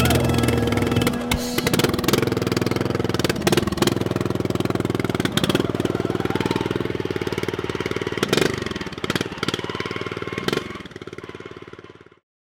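Music with a racing lawn mower engine running through it, its pitch sliding around once near the end; both cut off suddenly about twelve seconds in.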